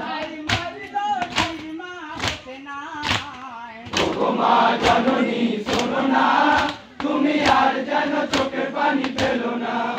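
Matam jari: a lone male voice sings a wavering mournful line, then from about four seconds a crowd of men chants back in chorus. Sharp strikes about twice a second, the mourners beating their chests, keep time throughout.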